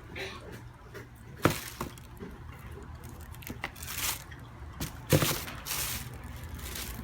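Handling noise: a few sharp knocks, the loudest about a second and a half in and again past five seconds, with short rustles in between, as sneakers and their packaging are handled.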